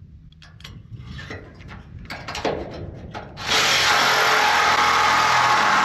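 A few light handling clicks and knocks, then about three and a half seconds in an electric reciprocating saw starts cutting into the steel wall of a shipping container, a loud, steady, gritty running. The cut is going really slowly, a sign that the blade may be worn out.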